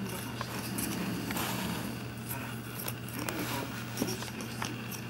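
Kitten playing with a cardboard toilet-paper tube on carpet: scattered light taps, scuffs and scrapes as it bites, paws and knocks the tube about, with the sharpest tap about four seconds in.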